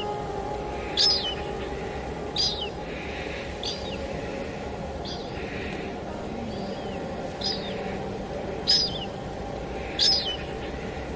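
A bird repeating a short, high, falling call at regular intervals, about eight times, over a steady hiss of falling rain and faint sustained background tones.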